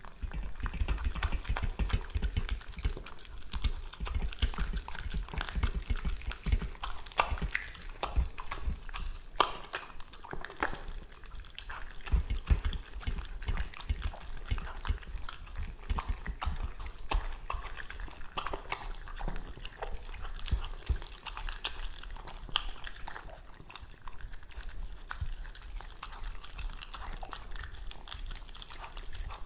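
Italian Greyhound eating raw minced duck dog food from a stainless steel bowl: a continuous run of wet chewing, smacking and gulping, with many small clicks and some soft low knocks throughout.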